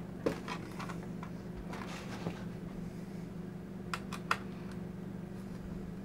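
A handful of light plastic and metal clicks and taps from a laptop being taken apart by hand, its keyboard lifted and a small screwdriver worked at the chassis. Two sharper clicks come about four seconds in, over a steady low hum.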